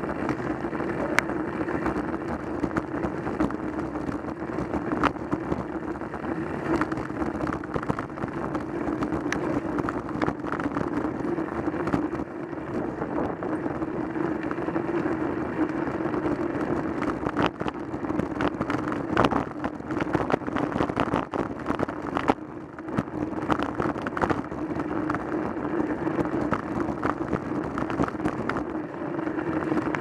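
Wind and road noise from a moving road bike picked up by a handlebar-mounted action camera: a steady rushing with a low hum, broken by many scattered sharp clicks and rattles.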